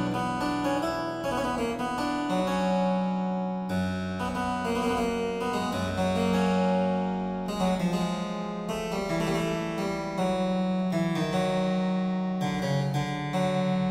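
Two-manual harpsichord, built by William Horn after a 1638 Johannes Ruckers instrument, playing solo: plucked chords and a melodic line over held bass notes.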